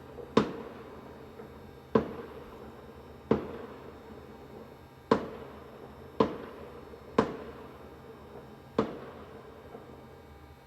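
Fireworks going off: seven sharp bangs at irregular intervals of one to two seconds, each trailing off in a short echo.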